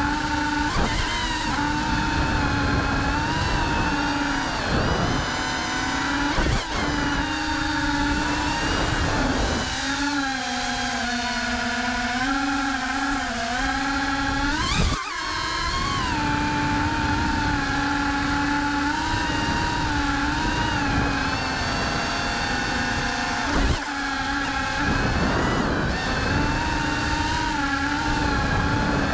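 FPV quadcopter's electric motors and propellers heard through the onboard camera: a steady buzzing whine that shifts in pitch as the throttle changes. It dips lower for a few seconds, then climbs in a sharp rising sweep about halfway through.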